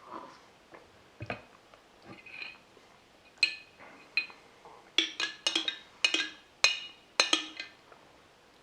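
Hard clinks and taps on glass, each with a short ring: a few scattered at first, then a quick run of about eight in the last few seconds.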